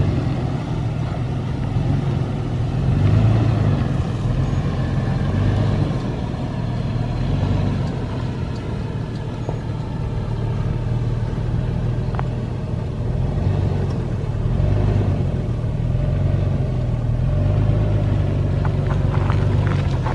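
2011 Toyota 4Runner's 4.0-litre V6 running at low, steady revs as the truck crawls along a rough off-road trail. Its low hum rises and falls slightly, with a few faint knocks.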